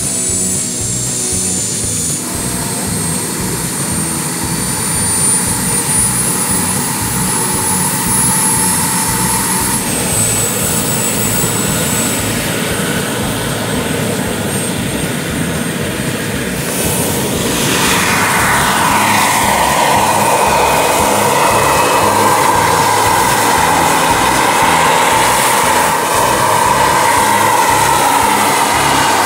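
Turbine engine of a large radio-controlled EC135 scale helicopter running with its rotors turning: a thin high whine climbs steadily in pitch for several seconds, then drops. A bit past halfway the rotor and turbine noise grows louder and fuller as the model takes off and flies.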